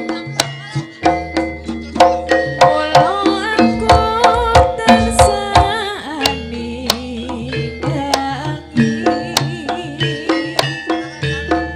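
Live Javanese jaranan ensemble music: drums and struck metal instruments keep a steady, fast beat, with ringing pitched notes and a wavering melody over it.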